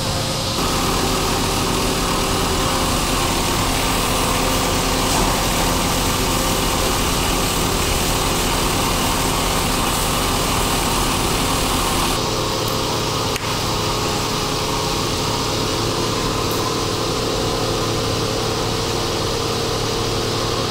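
Pasta-making plant machinery running: the steady hum and whir of the macaroni extruder and its cutter. The sound changes abruptly about half a second in and again about twelve seconds in.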